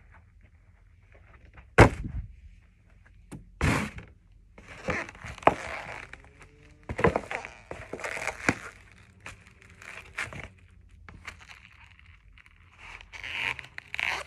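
Cardboard pizza box being stamped on and crushed underfoot by running shoes on carpet: a loud sharp thud about two seconds in and another a couple of seconds later, then several bursts of the cardboard crunching and crackling as it folds.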